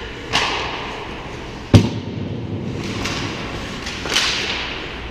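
Ice hockey play close to the goal: skate blades scraping and hissing on the ice in several short bursts, with one sharp, loud impact a little under two seconds in.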